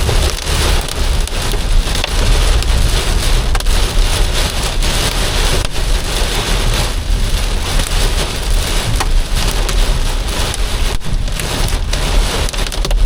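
Heavy thunderstorm rain beating on a car, heard from inside the car: a loud, dense, steady patter over a low rumble.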